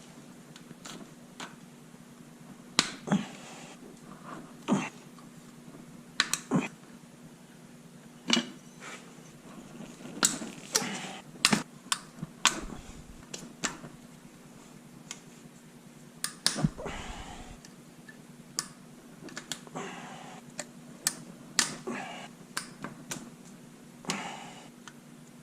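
Irregular metallic clicks and clinks of hand tools and bolts while the cover bolts come off a motorcycle's primary case, with a dull thud about two-thirds of the way through.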